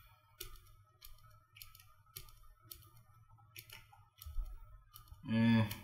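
Light, sharp computer clicks, about one every half second, as a video is skipped forward a few seconds at a time. Near the end there is a short hummed "hmm" from a man's voice.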